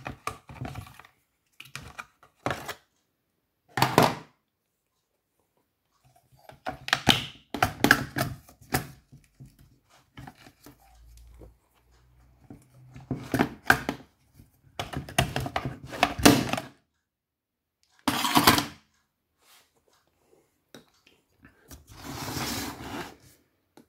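Stihl MS361 chainsaw's plastic top cover and engine parts being taken off and handled: irregular clicks, knocks and thunks in short clusters, with a longer scraping rustle near the end.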